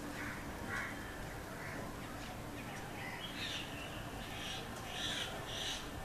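Common myna giving a string of short, harsh calls. The first few are spaced out, and they come louder and closer together over the second half.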